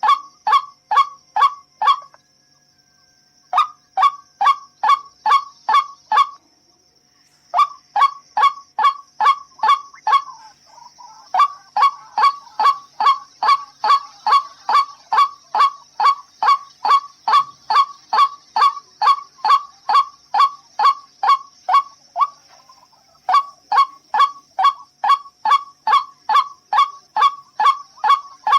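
White-breasted waterhen calling: a loud honking 'ruak' note repeated about twice a second in long runs, broken by two short pauses in the first quarter. A faint steady high-pitched whine runs underneath.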